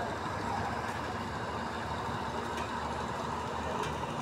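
Steady street background noise with a low rumble of traffic.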